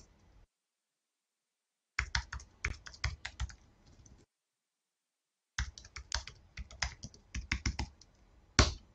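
Computer keyboard keys clicking in two quick runs of about two seconds each, with silence between and one louder click near the end.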